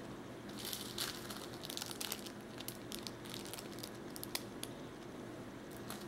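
Small clear plastic bag crinkling as it is handled, in a string of crackles and light clicks that die away about two-thirds of the way through.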